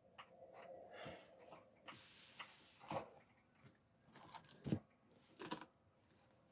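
Cardboard box and packaging being handled and opened: rustling with a few sharp knocks and clicks.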